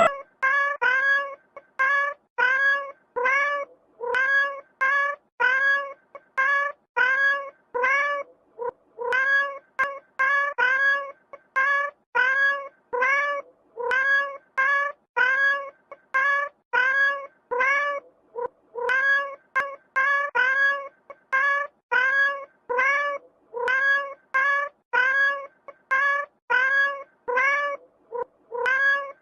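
A cat meowing over and over: short, near-identical meows, about two a second, in little groups with brief gaps between them.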